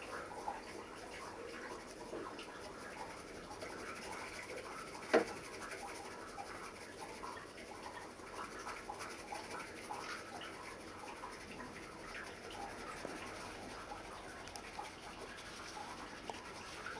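Bamboo tea whisk (chasen) whisking matcha in a ceramic tea bowl: a steady rapid swishing made of many fine ticks. One sharp click about five seconds in.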